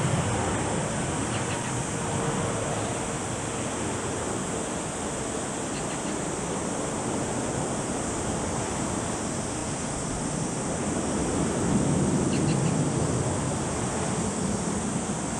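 Jet engines of a departing Airbus A330-300 airliner at take-off power: a steady, rushing roar that swells slightly near the end.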